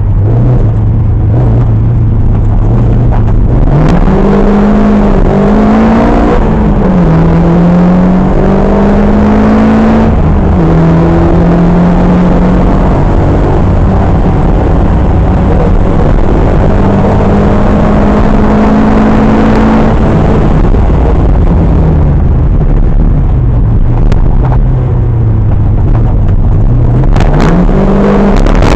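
Historic rally car's engine heard from inside the car, driven hard: it revs up through several quick gear changes, holds a high steady note at speed, then winds down for several seconds and picks up again near the end.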